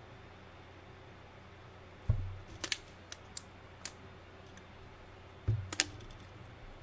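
Small hand tools being handled at a jewellery bench: two dull knocks about three seconds apart, each followed by a few light, sharp clicks, as tweezer nose pliers are taken up and set against the silver wire prongs.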